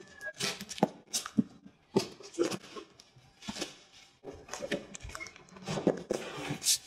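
Large cardboard shipping box being opened by hand: a box cutter slicing through the packing tape, then the cardboard flaps scraping and flapping open, heard as a string of irregular rasps and sharp knocks.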